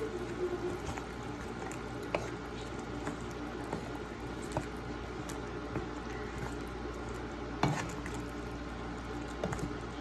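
Pot of chicken curry simmering and bubbling, with scattered small pops and one louder pop near the end.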